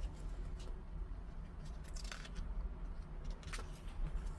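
Glossy pages of a large photobook being handled and turned by hand: a few soft paper rustles and swishes.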